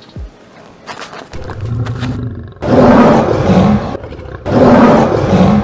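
Lion roar sound effect: a growl builds for about a second, then two loud roars follow, each a little over a second long, with a short gap between them.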